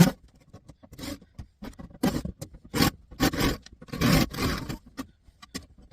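Rough scraping and knocking from a twin cassette deck's casing being handled and worked on during a teardown: a sharp knock at the start, then a string of short scrapes, the loudest about two to four seconds in.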